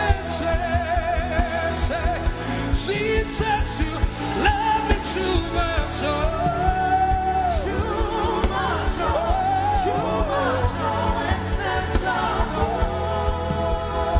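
Live gospel worship music: a vocalist sings long, wavering melodic lines over a full band with steady bass and regular cymbal strikes.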